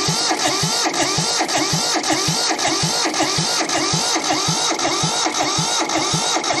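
Mitsubishi diesel tractor engine cranking over on its electric starter, about five even compression strokes a second, without catching. It is being cranked on a shot of WD-40 used as starting fluid, which does not make it fire.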